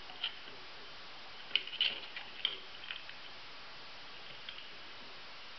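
Light clicks and taps of 3D-printed plastic engine parts being handled and pressed together, one just after the start and a cluster about one and a half to three seconds in, over a steady faint hiss.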